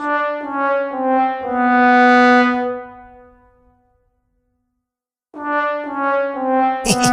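A "sad trombone" comedy sting: a brass instrument plays four notes stepping down, the last held long and then fading, in the classic "wah wah wah waaah" failure cue. After a pause the phrase plays again, with a sharp click near the end.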